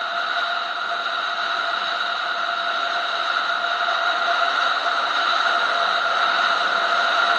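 Motorcycle on the move, heard as steady wind and road rush on a bike-mounted camera's microphone, slowly getting louder as the bike gathers speed.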